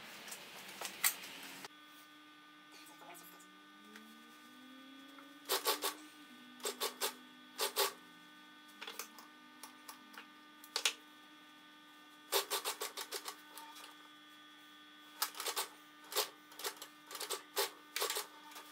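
Industrial flatbed sewing machine stitching a seam in several short bursts of rapid needle strokes, its motor humming steadily in between.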